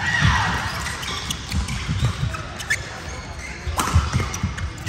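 Badminton doubles play on an indoor court: repeated thuds of players' feet on the floor, shoes squeaking near the start and again near the end, and sharp clicks of rackets striking the shuttlecock.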